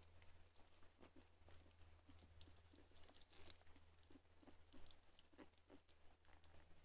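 Two-week-old chocolate Labrador puppies suckling: faint, irregular wet smacking and clicking, over a low steady hum.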